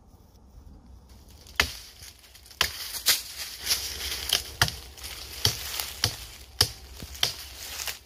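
Dry branches and twigs cracking, with dry leaves and brush crunching: a sharp snap about every half second, starting about a second and a half in.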